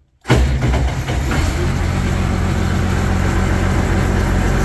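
Allis-Chalmers 190 XT Series 3 tractor's six-cylinder diesel engine firing almost at once, about a third of a second in, and then running steadily at idle, heard from inside the cab. It starts right up.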